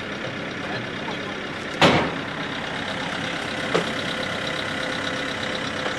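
A vehicle engine running steadily, with a sharp knock about two seconds in and a lighter one near four seconds.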